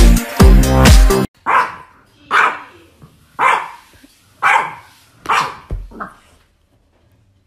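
Dance music with a steady beat cuts off about a second in; then a puppy barks about once a second, five sharp barks and a weaker sixth.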